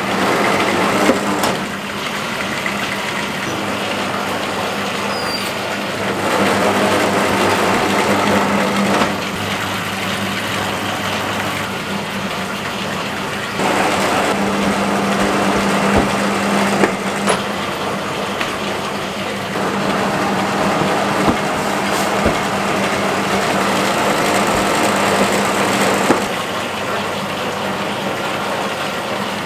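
Electric dough sheeter running, its motor giving a steady hum under a mechanical whir that steps louder and softer every few seconds, with a few sharp knocks.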